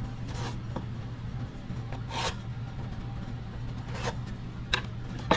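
Pencil drawn across the paper back of a drywall patch piece, marking cutting lines: about five short strokes spread through, the strongest about two seconds in, over a steady low hum.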